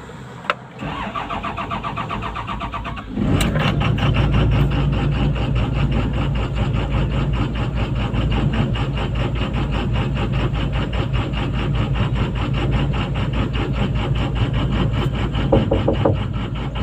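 Komatsu PC200-8 excavator's six-cylinder common-rail diesel engine being started: a click, about two seconds of rhythmic starter cranking, then it catches about three seconds in and keeps running steadily.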